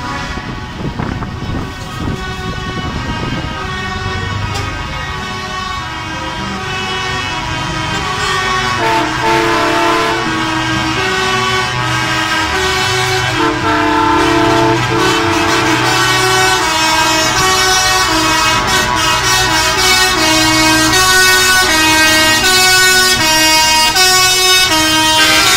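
Trucks in a slow convoy driving past with their horns and air horns sounding over and over, several at once, over the low running of their engines. It grows louder as the trucks come closer.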